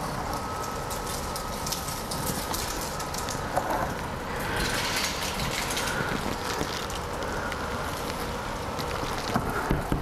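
Steady background hiss with light scratching and small ticks as a marker is drawn around a plastic template on a plastic console panel, the scratching a little stronger around the middle.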